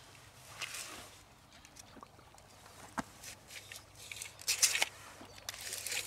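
Handling sounds as a steel tape measure is drawn out and laid along a fish on gravel: a sharp click about three seconds in, then several short scraping, rustling bursts near the end.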